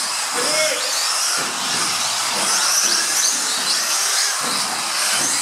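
Several electric mini offroad RC cars racing: the high whines of their motors rise and fall over and over as they accelerate and brake, over a steady hiss.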